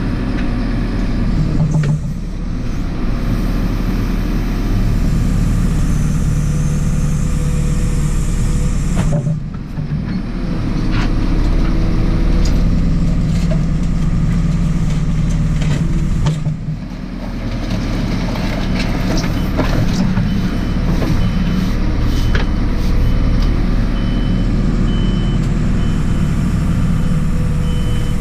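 Diesel engine of a JCB 4CX backhoe loader running under load, its drone dipping briefly twice as the load changes. In the last several seconds a reversing alarm beeps at an even pace.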